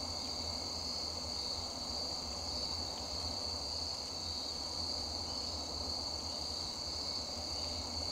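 Steady chorus of insects trilling, a continuous high-pitched drone that holds even throughout.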